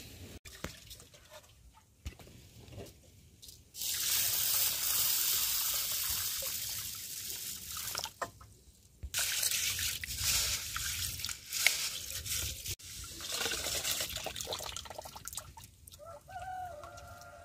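Water poured into a metal bowl of dry mung beans, then the beans swished and rinsed by hand, with splashing, trickling and dripping; the pouring starts about four seconds in. A short animal call near the end.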